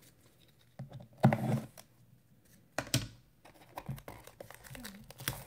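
A few knocks and taps as a shrink-wrapped trading card box is handled, then a run of small crackles as fingers pick at the plastic shrink wrap to tear it open.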